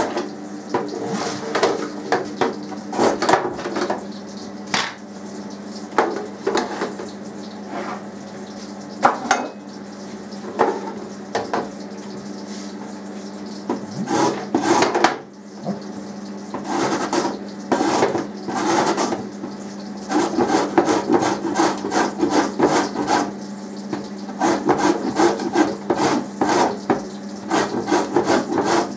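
Carrot grated by hand on the metal grating plate of a plastic box grater: rasping strokes, scattered at first, then quick and steady through the second half.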